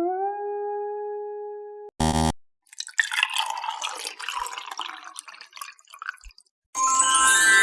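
A string of separate sound effects: a held tone whose pitch wobbles, then steadies and cuts off about two seconds in, followed by a short low buzz. Then comes about four seconds of scattered crackling, dripping noise, and near the end a bright chiming hit that rings on.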